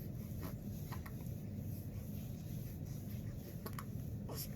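Faint rustling and a few small clicks from a squirming infant, over a steady low hum.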